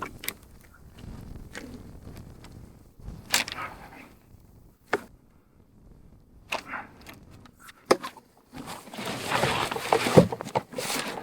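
Irregular knocks, clicks and rustles from hunting gear being handled while decoys and a blind are set up. About eight and a half seconds in, a longer, louder stretch of rustling starts.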